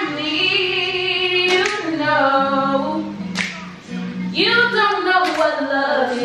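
A girl singing, holding long notes with a wavering vibrato in phrases of one to two seconds, with a few short sharp clicks between phrases.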